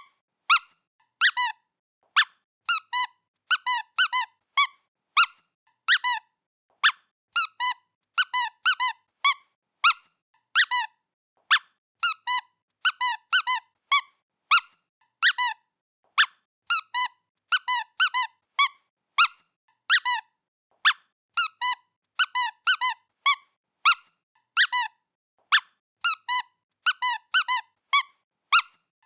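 Squeaky toy being squeezed over and over as a cat plays with it: short, high squeaks at an irregular pace, often two in quick succession.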